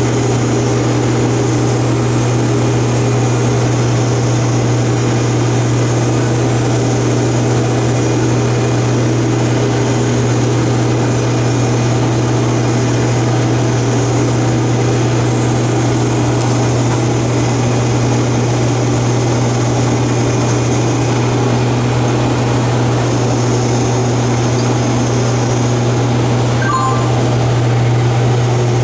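Case IH combine harvester running steadily: a constant low drone that holds one pitch throughout, with a couple of faint ticks near the end.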